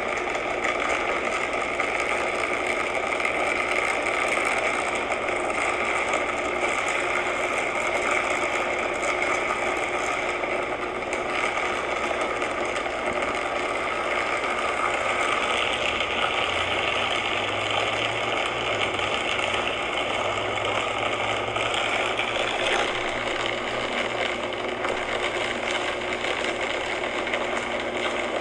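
Downed power line shorting out: electrical arcing with a steady, crackling buzz. For several seconds past the middle it grows harsher, with a low hum added.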